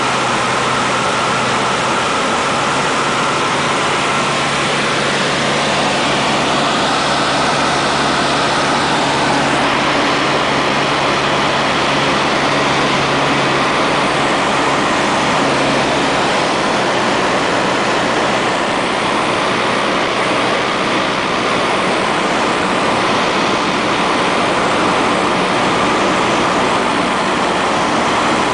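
Cabin noise of a Cessna 152 in flight: its four-cylinder Lycoming O-235 engine and propeller running steadily with rushing airflow, heard inside the cockpit. The low engine tone changes about halfway through.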